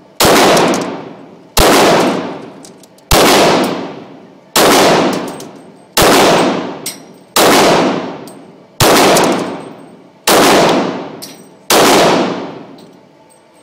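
Glock 22 .40 S&W pistol fired nine times at a steady pace, about one and a half seconds apart, each shot followed by a long ringing decay.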